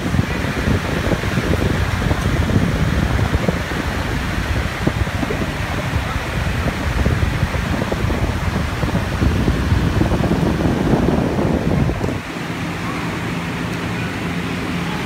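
OEMCOOL evaporative air cooler's fan blowing hard through the front grille: a steady rush of air with wind buffeting the microphone. About twelve seconds in, the buffeting drops away and a steady low hum remains.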